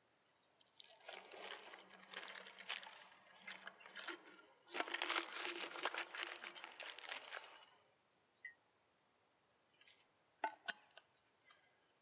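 Brown paper bag crinkling and rustling as it is handled, in two stretches of a few seconds each, followed by a few sharp clicks near the end.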